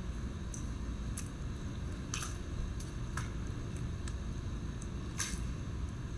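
Swimming-pool water lapping around a floating body, with a handful of small sharp splashes over a steady low rumble.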